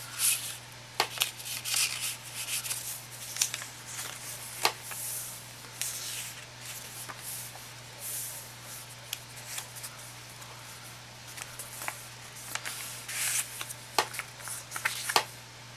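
Paper and card rustling and sliding as journal pages are turned and a small card is handled, with scattered light taps. A faint steady low hum runs underneath.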